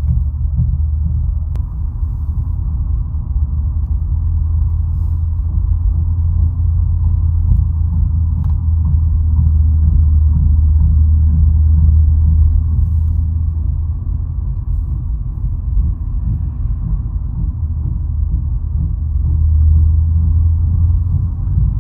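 Low, steady rumble from a 2013 Ford F-150 on the move. It swells about ten seconds in and again near the end, and is the grinding noise coming from one of its wheels.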